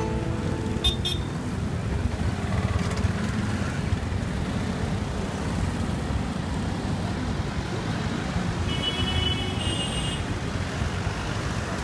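Busy street traffic noise: a steady low rumble of engines, including auto-rickshaws, with short high-pitched tones twice about nine seconds in.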